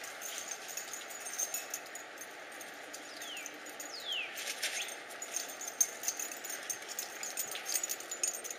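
Scattered crunching footsteps on snow and gravel, with two short falling chirps about three and four seconds in.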